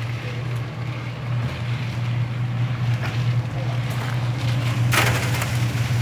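Portable drum concrete mixer running with a steady low motor hum, its turning drum churning the mix with a gritty rattle. About five seconds in there is one short, loud scrape.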